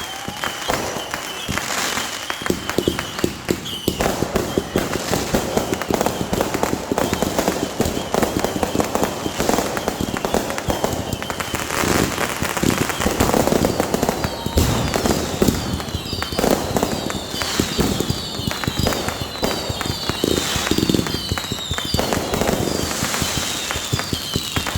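Consumer fireworks going off: dense, rapid crackling and popping throughout, with a run of short, repeated whistles starting about fifteen seconds in.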